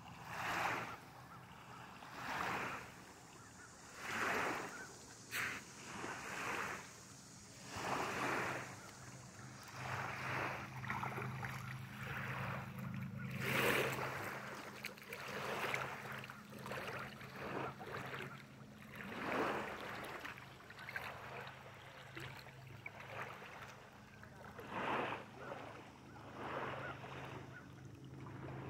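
Small waves lapping on a sandy lake shore, a soft wash every second or two, over a low steady hum.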